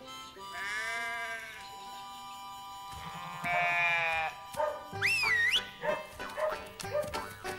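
Sheep bleating: two long bleats, then a high wavering whistle-like call about five seconds in, followed by quick clattering knocks and short bleats, over steady background music.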